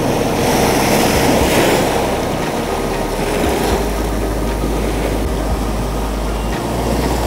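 Ocean surf breaking and washing over rocks and sand, swelling in the first two seconds, with wind rumbling on the microphone.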